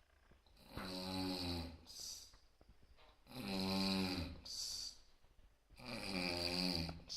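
A person snoring: three rattling snores about two and a half seconds apart, each followed by a short hissing breath.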